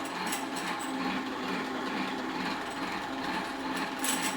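Drill press on low speed spinning the gear train of an opened 3000GT/Stealth 5-speed AWD transmission, a steady mechanical hum with a few light clicks near the start and near the end. The gearbox is held slightly into gear, which the owner says stops the neutral rattle coming from the loose 3/4 slider.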